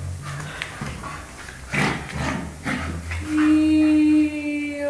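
Staffordshire bull terrier and German shepherd puppy play-fighting: short sharp barks and scuffles, then about three seconds in a long, low call held for about a second that fades and slowly drops in pitch.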